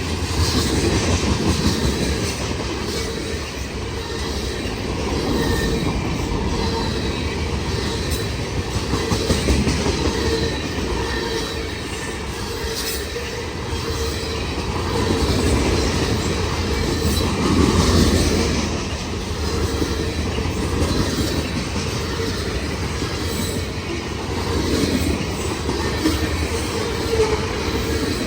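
A long freight train's cars rolling past, with a steady rumble of steel wheels on the rails and a faint high wheel squeal over it.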